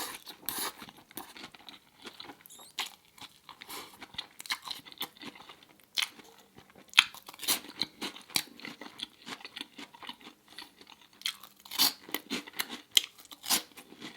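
Close-up chewing of a mouthful of Beyond Meat burger: irregular wet mouth clicks and crunches, busiest near the end.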